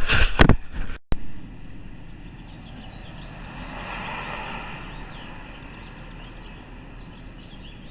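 A few sharp handling knocks and a brief dropout, then an even rushing noise of a passing vehicle that swells to a peak about halfway and fades.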